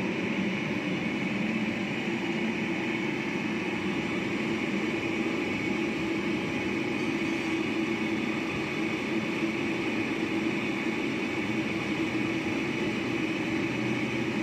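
CNC lathe running steadily while machining metal, a constant machine hum and hiss that does not change.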